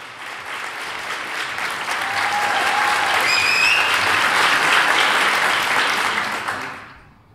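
Audience applauding, building up and then dying away near the end, with a short whistle about three seconds in.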